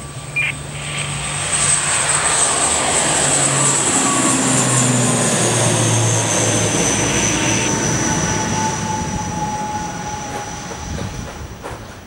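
ATR 72-500's twin Pratt & Whitney PW127 turboprop engines at takeoff power as the airliner lifts off and climbs past. The engine and propeller noise swells over the first couple of seconds, holds, then fades near the end, with a high whine that slowly drops in pitch as the plane goes by.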